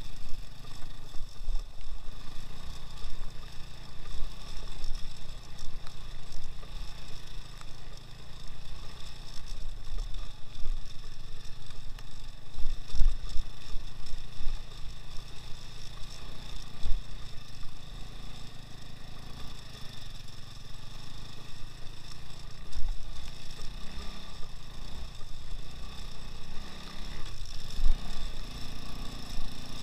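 Engine of a two-wheel-drive all-terrain motorcycle running steadily under way, with low thumps now and then.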